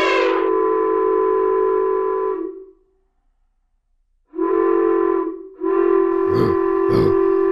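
Steam locomotive whistle blowing long, steady chime-like blasts. The first stops about two and a half seconds in; after more than a second of silence come a short blast and a longer one, with two sharp knocks over the last.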